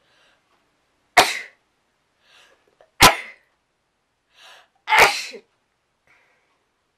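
A person sneezing three times, about two seconds apart, with faint catching in-breaths between the sneezes. The sneezes are set off by a twisted tissue tickling the inside of the nose.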